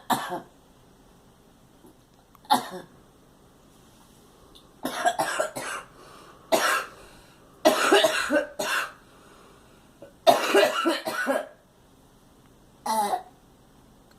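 A girl coughing from a cold, in repeated fits a few seconds apart: single coughs alternating with longer runs of several hacking coughs.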